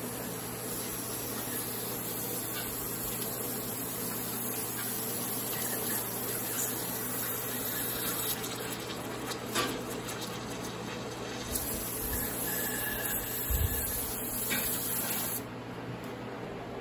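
Aerosol cleaner spraying in a long, steady hiss onto a sludge-coated automatic transmission valve body, with a couple of light knocks partway through. The spray cuts off sharply near the end.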